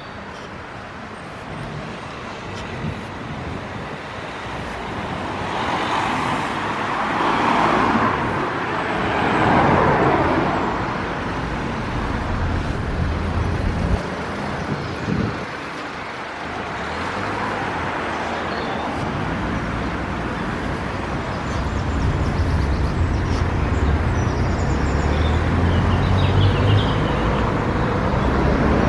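Road traffic passing: a steady wash of vehicle noise with cars swelling past about a third of the way in, and a low engine rumble growing stronger toward the end.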